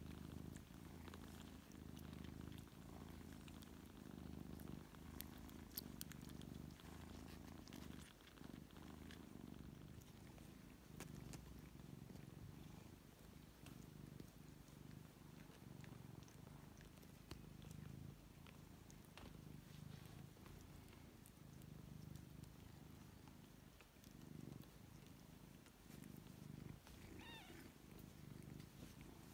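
Faint, low purring from a Ragdoll cat nursing her litter, swelling and fading every second or two. A short high squeak comes near the end.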